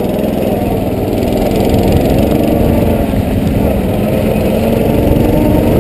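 Off-road vehicle engine running steadily under load at speed, with heavy wind rumble on the microphone.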